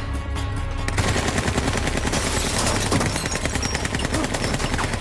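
Automatic gunfire: long rapid strings of shots, many a second, starting about a second in after a short lull.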